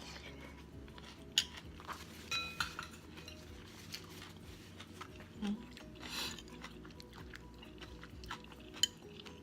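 Spoon or fork clicking and clinking against a dish while a person eats, with scattered light taps and one ringing clink about two and a half seconds in.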